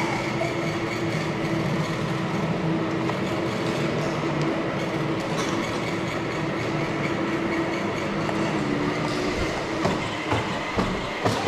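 Battery-powered kids' ride-on car driving: a steady electric motor and gearbox whine over the rumble and rattle of plastic wheels rolling on the ground, with a few sharp knocks near the end.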